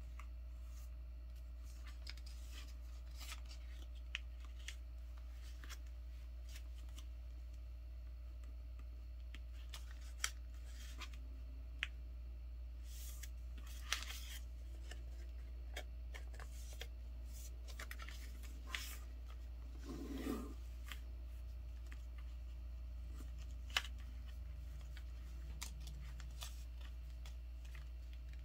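A sheet of paper being folded and creased by hand: soft rustles and light crinkles as fingers slide along and press down the folds, with a sharper crackle now and then, over a steady low hum.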